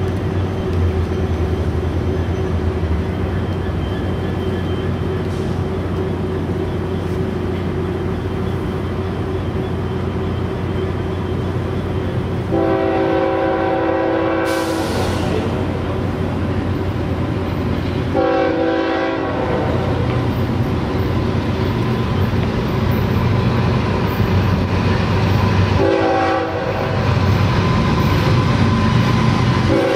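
Freight diesel locomotive's multi-chime air horn sounding the grade-crossing pattern: two long blasts, a short one, then another long one starting near the end. Under it runs a steady low diesel rumble that grows louder toward the end as the train approaches.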